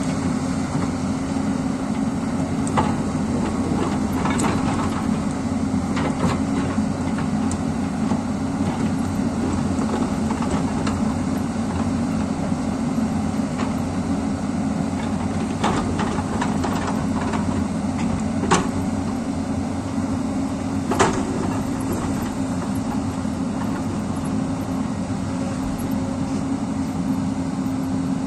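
Hyundai 220L crawler excavator's diesel engine running steadily under working load, with scattered knocks and scrapes from the bucket digging into rocky soil; two sharper knocks come about two-thirds of the way through.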